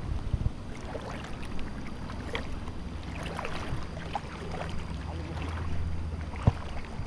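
Wind rumbling on the microphone over water sloshing and splashing as men wade in floodwater throwing a cast net. One sharp thump comes about six and a half seconds in.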